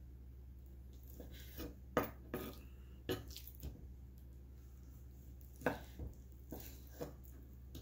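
Chef's knife cutting raw chicken breast into cubes on a wooden cutting board: about ten irregular knocks of the blade meeting the board, over a steady low hum.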